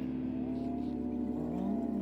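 Background music: an electric guitar line of sliding, bending notes over steady low tones.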